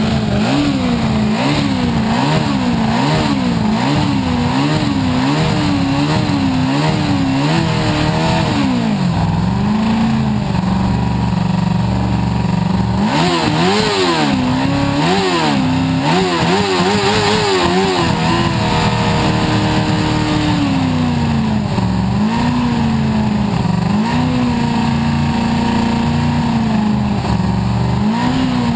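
Formula SAE race car engine running and being revved in repeated short throttle blips, about one a second at first, then holding steadier. There is another quick run of blips midway, and a few more near the end.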